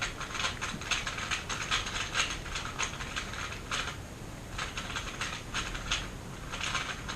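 3x3 Rubik's-type speedcube being turned very fast, its plastic layers making rapid, irregular clicking with a short pause about four seconds in.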